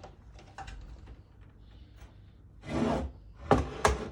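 A Hotpoint cooktop being lifted out and handled: a half-second scrape as it slides, then two sharp knocks as it is set down on a surface.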